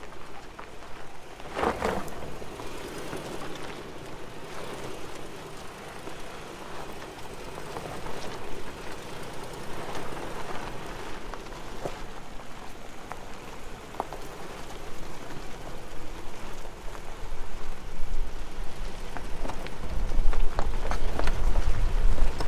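Lexus 4x4 crawling slowly over a rocky, gravelly trail: tyres crunching and crackling over stones, with scattered knocks and rattles from the vehicle, the loudest about two seconds in. A low rumble builds near the end.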